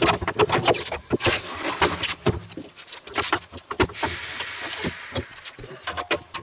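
Irregular metallic knocks and clatter as a wheel with its tyre is handled and set down on a tyre-changing machine's turntable, with a brief hiss about four seconds in.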